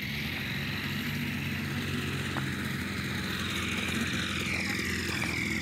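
An engine running steadily, with a higher whine that falls in pitch near the end.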